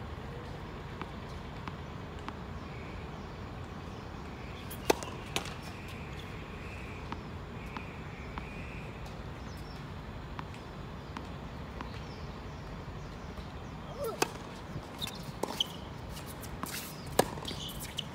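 Steady low background rumble with scattered sharp knocks: faint ticks about once a second, one loud knock about five seconds in, and a run of knocks near the end.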